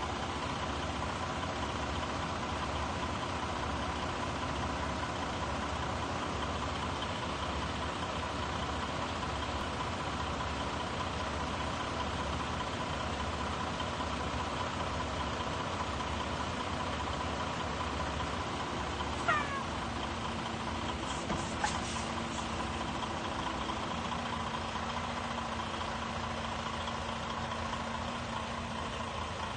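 Semi-truck's diesel engine running steadily at low revs while backing a trailer. About two-thirds through, a short high squeal falls in pitch, followed by a few faint ticks.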